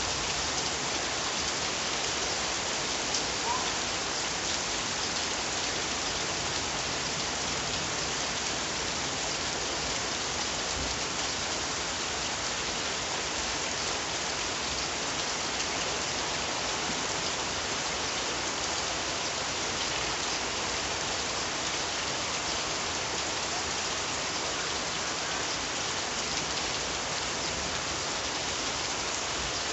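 Steady rain falling, an even patter of raindrops on surfaces.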